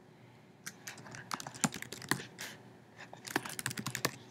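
Typing on a computer keyboard: a string of separate keystrokes starting a little under a second in, with a quick run of keys near the end.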